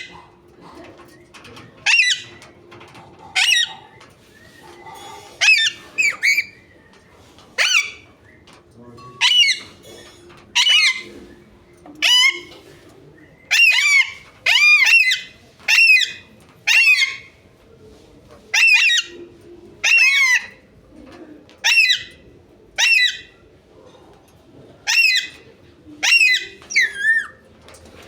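Parrot calling repeatedly: about twenty short, loud calls, one every second or two, some coming in quick pairs.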